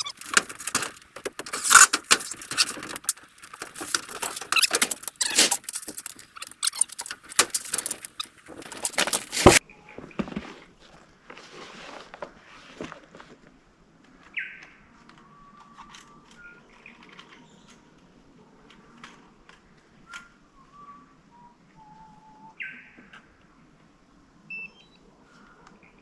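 Dense clattering and jangling with many sharp clicks for about ten seconds, which stops suddenly; then a faint outdoor background with short, scattered bird chirps.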